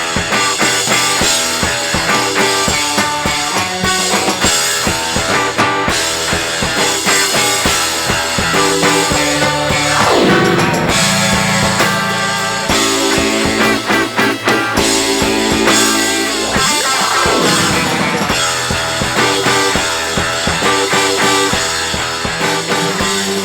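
Live rock band playing an instrumental intro on drum kit, guitars and bass, with a falling guitar slide near the middle and another a few seconds later.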